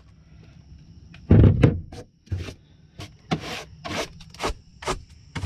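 A thump about a second and a half in, then a run of short scraping or rubbing strokes, about two a second.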